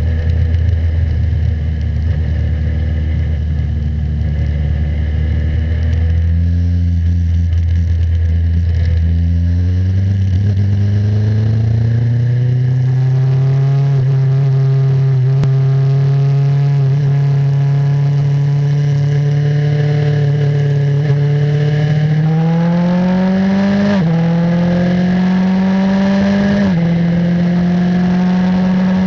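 Martini MK39 Formula 3 car's engine heard from its own onboard camera, running at a steady low pitch for several seconds, then climbing and holding higher as the car accelerates. Near the end the revs rise quickly and drop sharply twice: two upshifts under full acceleration.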